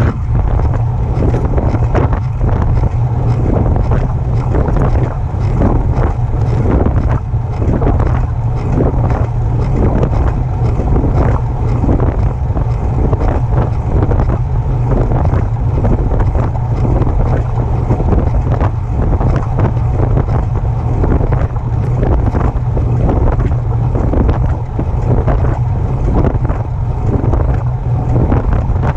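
Specialized Turbo e-bike making a regular clicking noise while being pedaled, with heavy wind rumble on the microphone.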